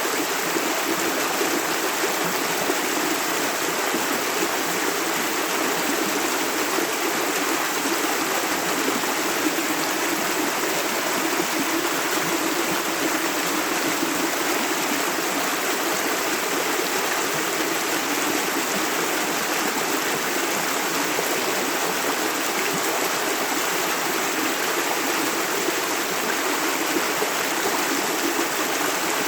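Clear, shallow river flowing steadily: continuous rushing and babbling of running water over stones, without pause or change.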